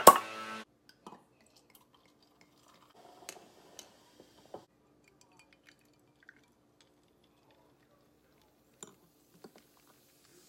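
A short burst of music ends with a loud sharp hit right at the start. After that there are only a few faint, scattered clicks and clinks.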